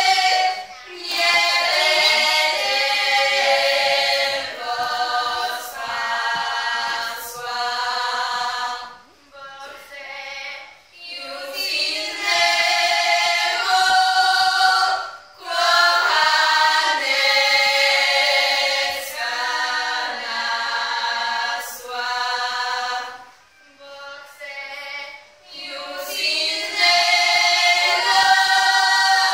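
A group of women singing a Polish highland (Górale) folk song a cappella in loud, high, close harmony. The song comes in long held phrases, with two short breaks for breath partway through.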